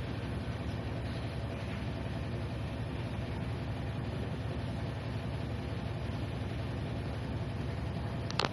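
A steady low machine hum with an even hiss over it, and a brief pair of sharp clicks just before the end.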